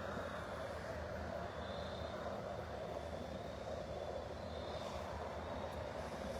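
Steady outdoor background hum of distant road traffic, even and unbroken, with no distinct events.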